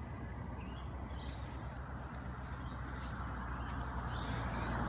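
Birds chirping over a low steady rumble that grows louder toward the end as a vehicle approaches on the road.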